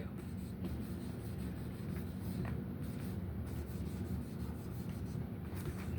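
Soft rubbing and scratching as lemon oil is worked into a guitar's wooden neck, over a steady low room hum.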